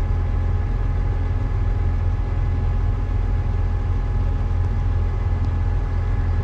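Heavy farm machinery's diesel engine running steadily: a strong low drone with a thin, steady whine on top.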